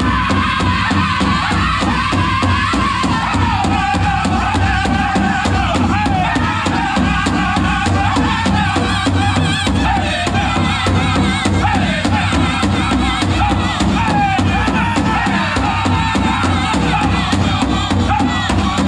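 Powwow drum group singing a chicken dance song over a steady unison beat on a big powwow drum.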